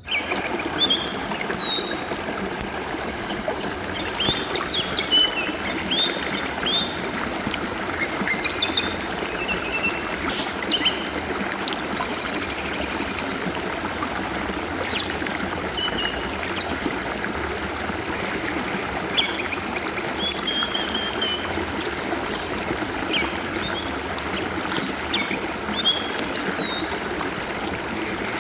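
Stream water flowing steadily, with an oriental magpie-robin singing short whistled and chirping phrases throughout, and a harsh buzzy note about twelve seconds in.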